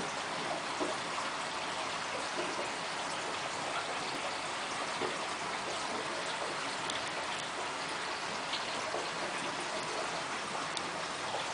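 Aquarium water running: a steady trickling and splashing with scattered small droplet ticks.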